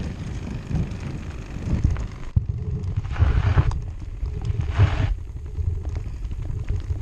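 Piece of cardboard clipped to a bicycle fork with a clothespin, flapping against the spokes as the bike is ridden, making a motor-like buzz, with wind rumbling on the microphone. Two short rushes of noise come about three and five seconds in.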